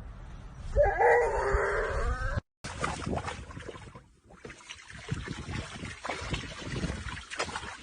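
An animal's loud, wavering call lasting about a second and a half. After a sudden cut, quieter scattered knocks and rustling follow.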